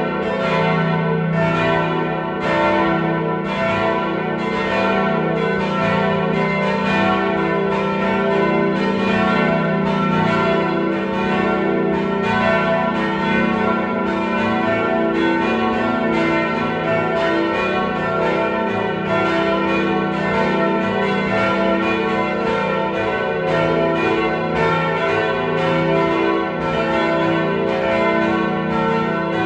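Full peal of a four-bell church ring, tuned e, f-sharp, a and b, the oldest bell cast in 1475, all swinging at once. Their strokes overlap at about two a second over a ringing that carries on unbroken.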